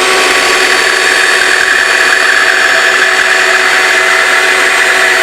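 Bandsaw running steadily, its blade cutting through a wooden table leg.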